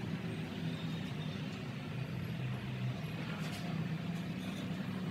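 Steady low machine hum with a few faint, even tones, and a couple of faint light ticks about three and a half seconds in.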